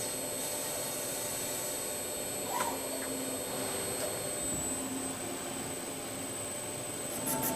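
Steady industrial machinery noise with a thin, high, constant whine, and one short clink about two and a half seconds in.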